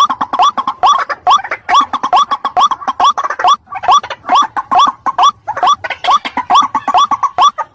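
White-breasted waterhen (ruak-ruak) calling: a fast, unbroken series of short rising notes, about three a second.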